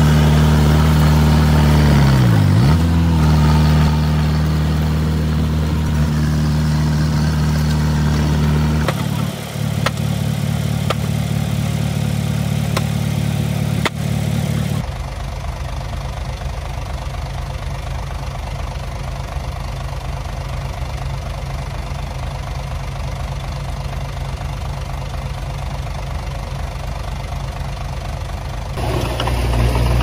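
Heavy-equipment diesel engines running, loud and steady. About two seconds in the engine pitch drops sharply and recovers, and the engine sound changes abruptly three times, as the footage cuts between machines.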